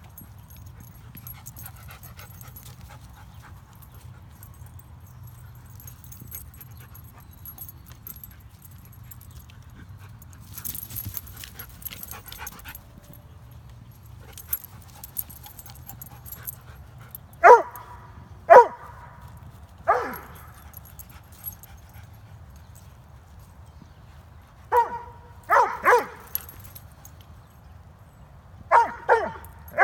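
A dog barking in play: three short barks about a second apart past the middle, then tighter clusters of two and three barks near the end.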